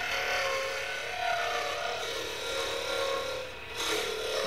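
Skew chisel cutting a spinning Tzalam wood blank on a wood lathe: a steady scraping hiss of the cut over the lathe's running hum. The cutting eases briefly about three and a half seconds in.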